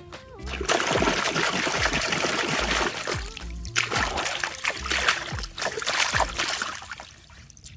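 Water splashing and trickling as toy vehicles are washed, over background music with a steady beat. The water starts about a second in and fades out near the end.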